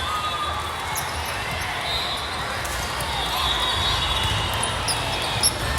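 Sports-hall din from volleyball play: balls bouncing on the court floor, shoe squeaks and distant voices over a steady low rumble. There is a sharp ball smack or bounce near the end.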